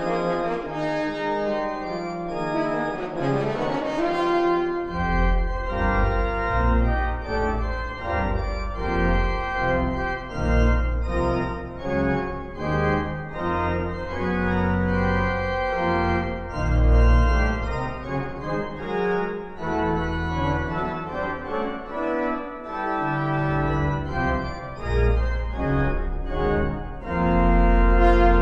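Organ playing a solo passage of a concert piece for horn and organ. Deep pedal bass notes come in about five seconds in, and the music swells louder near the end.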